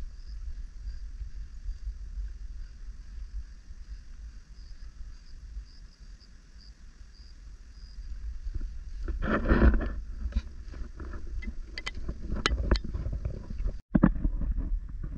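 Wind buffeting the microphone, a steady low rumble. A little past halfway comes a louder rustling gust, then scattered crunching taps of footsteps on a rocky dirt trail.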